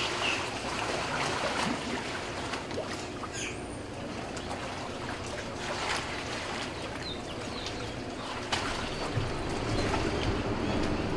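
Waterfront ambience: a steady wash of water with a low boat-motor rumble that grows near the end, and a few short bird chirps, the clearest about three seconds in.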